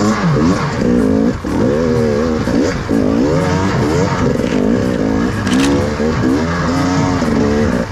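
Enduro dirt bike engine revved hard under load, the throttle opened and eased many times so the revs keep rising and falling, as the bike takes a run-up at an obstacle too steep to clear without momentum.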